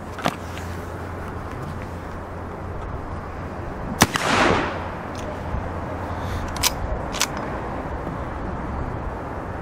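Uberti 1860 Henry reproduction rifle firing a single .44-40 black-powder cartridge about four seconds in: one sharp report with a short echo after it. About three seconds later come two sharp clicks half a second apart as the lever is worked.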